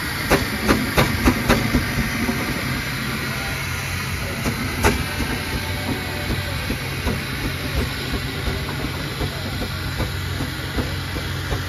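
1899 steam traction engine at work, steam hissing steadily over a low hum. About five sharp clanks come in quick succession in the first two seconds, and one more about five seconds in.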